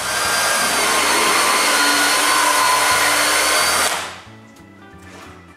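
Electric drill boring a pilot hole for a screw into the wooden rack, running steadily with a high whine for about four seconds, then cutting off. Faint background music plays underneath.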